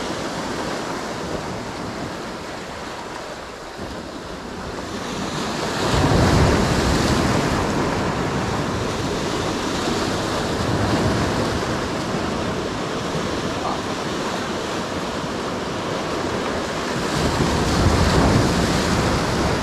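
Sea waves breaking and washing over concrete tetrapod blocks of a breakwater, with wind buffeting the microphone. The surf swells louder about six seconds in and again near the end as waves crash and splash on the blocks.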